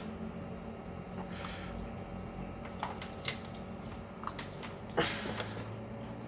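Handling noise of a small USB microphone being fitted together with its desk stand: scattered light clicks and rustles, with a sharper knock about five seconds in.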